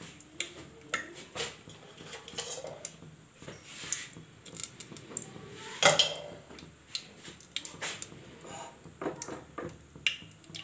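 Scattered clinks and knocks of kitchen utensils and metal containers being handled, with the loudest knock about six seconds in.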